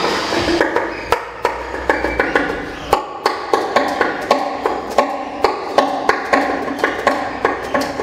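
Free improvisation for alto saxophone and noise machine. Sharp clicks and knocks come about two a second, with faint pitched tones between them.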